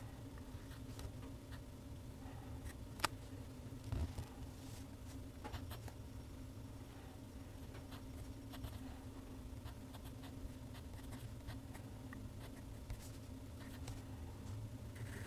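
A TWSBI ECO fountain pen's steel nib scratching faintly across Clairefontaine paper as it draws lines and letters, over a steady low hum. A sharp click about three seconds in and a softer knock a second later.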